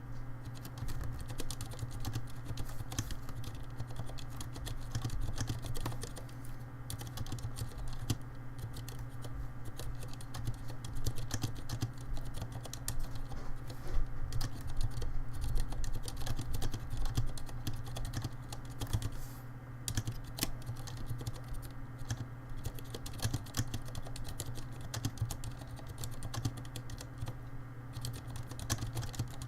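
Continuous typing on a Vortex Race 3 mechanical keyboard with Cherry MX Silent Red switches, dampened linear switches, giving a dense, irregular run of keystrokes. A steady low hum runs underneath.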